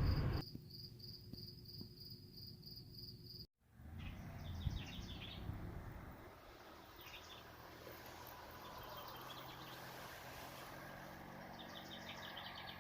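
Faint outdoor ambience: insects chirping in a steady high pulsing tone. After a brief cut, birds chirping in short repeated trills over a low hum.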